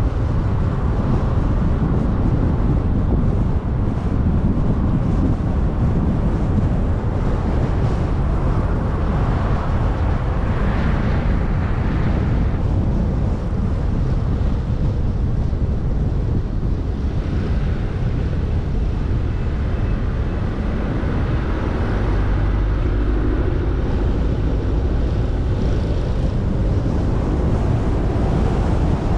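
Car driving, with steady road and wind noise that sits mostly in the low end.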